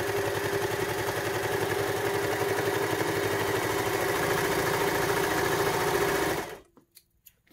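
Baby Lock Victory overlocker running at a steady speed, serging the edge of a strip of fleece with a fast, even stitching rhythm. It stops abruptly about six and a half seconds in, followed by a few faint clicks.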